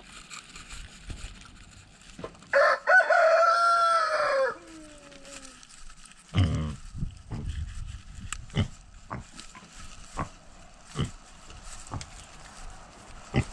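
A rooster crows once, a loud call of about two seconds starting around two and a half seconds in, falling in pitch at the end. Later come scattered short knocks and thumps, close to the microphone.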